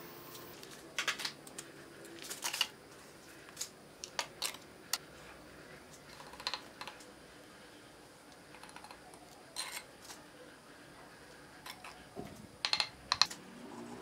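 Bricks being set into wet mortar in a steel drum: scattered light clicks and taps, with a few sharper knocks near the end.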